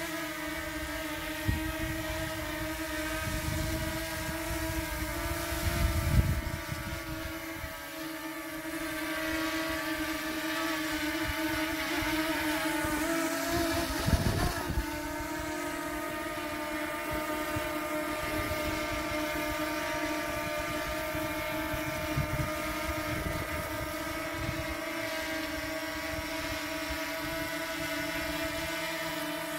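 DJI Mini 2 drone's propellers and motors buzzing steadily as it hovers low over grass, the pitch wavering briefly about halfway through. Twice there is a louder low rumble.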